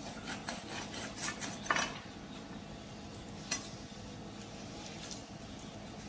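A knife and hands skinning a freshly killed chicken with its feathers on: scraping and rubbing with a few sharp clicks, the loudest just under two seconds in.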